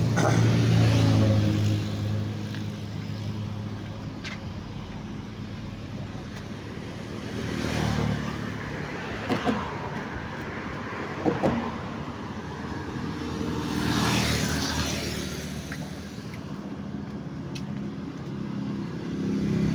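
Road traffic passing on a multi-lane bridge: a steady hum of engines and tyres, swelling as vehicles go by about a second in, around eight seconds and around fourteen seconds. Two short knocks come a couple of seconds apart in the middle.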